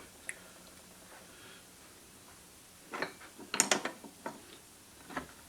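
Metal clicks and clinks of 700R4 automatic transmission internals being handled: the low roller clutch and its inner race. One click comes just after the start, a quick cluster of clicks follows about three to four seconds in, and another comes near the end.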